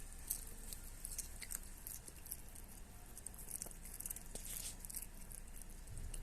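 A cat chewing and smacking on fish meat: faint, irregular wet clicks as it eats.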